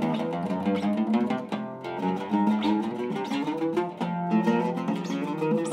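An oud with a cedar soundboard and a maple and mahogany back being played, a fast run of plucked notes, several a second, as a final playing test of the instrument's tone.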